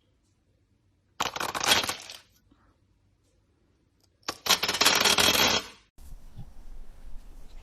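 Two bursts of dense clinking clatter, each a second or so long, of many small hard pieces spilling or pouring, with near silence between them. Near the end a quieter, steady rustling sound takes over.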